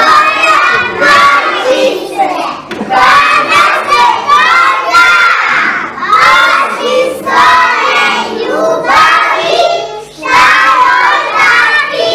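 A group of small children's voices in unison, loud, in short phrases of a second or two with brief pauses between them.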